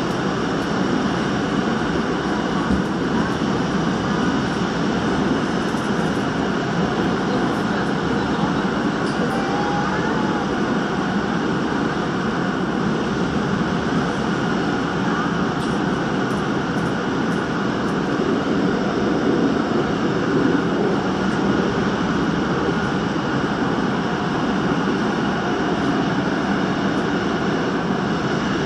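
Busan Metro Line 3 train running through a tunnel, heard from on board: a steady rumble of wheels on the rails and the running gear.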